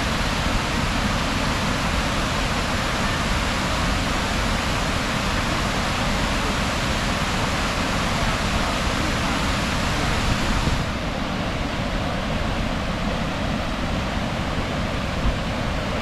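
Waterfall rushing in a steady, loud, even roar of falling water. About two-thirds of the way through, its highest hiss drops away.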